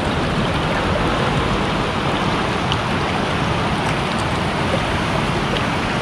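Fast-flowing Ganges rapids rushing over boulders close by: a steady, loud rush of white water.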